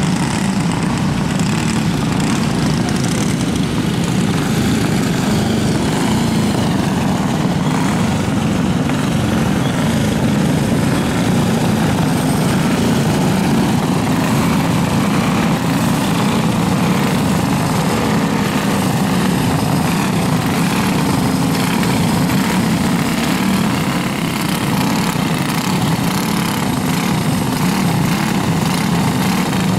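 A field of racing go-karts' small engines running together, an even, steady buzzing drone with no single engine standing out.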